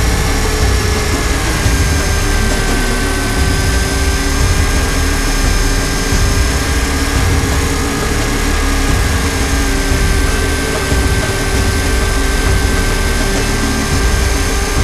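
Align T-Rex 500 electric RC helicopter in flight, heard from its onboard camera: a steady whine from the motor and drive gears over a dense low rumble of rotor wash and wind on the microphone.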